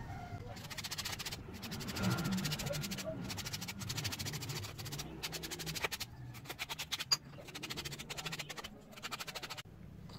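Hand-sanding small wooden pieces with a folded sheet of sandpaper: rapid, scratchy back-and-forth rubbing in bursts with short pauses, and a couple of sharp light taps of wood about two thirds of the way through.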